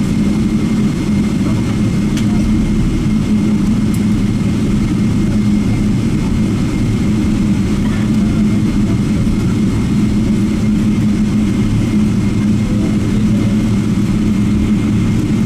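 Boeing 777-300ER's GE90 turbofan engines running at taxi thrust, heard inside the cabin as a steady low drone with a constant hum.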